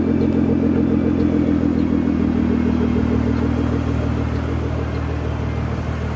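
Nissan GT-R Nismo's twin-turbo VR38DETT V6 idling steadily through a new full titanium exhaust, with the secondary catalytic converters removed but the stock cats still in place, so it is not very loud. The level eases off slightly toward the end.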